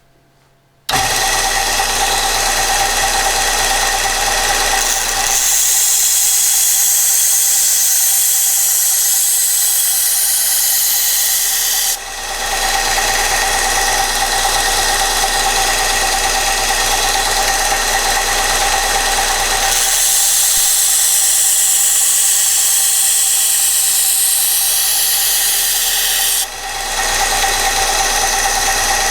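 Kalamazoo 1SM 1x42 belt sander switched on about a second in and running steadily with a constant motor hum. Twice, for about six seconds each, a knife edge is pressed to the abrasive belt, adding a bright rasping grind of steel on the belt.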